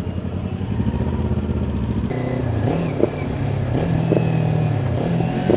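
Kawasaki Ninja 400's parallel-twin engine running through an Akrapovic slip-on exhaust while riding. The note pulses at low revs, briefly rises and falls about three seconds in, then holds a steadier, higher note, with a few short clicks.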